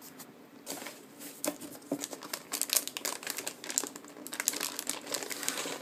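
Crinkling of a motherboard's metallic anti-static bag and rustling of the cardboard box insert as they are handled, in irregular crackles that grow busier about halfway through.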